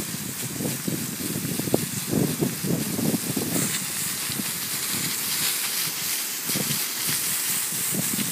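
Air blower jet hissing steadily as it blasts sand across the turf, over an irregular low buffeting. The hiss turns brighter about three and a half seconds in.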